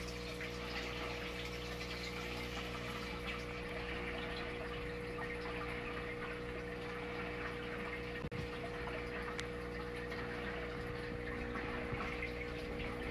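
Aquarium filter or water pump running: a steady rush of moving water with a steady low hum underneath.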